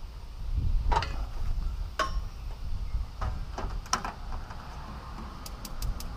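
Gas grill igniter clicking while the burner is being lit: a few separate clicks, then near the end a fast, even run of sparking clicks, about five a second. Wind rumbles on the microphone underneath.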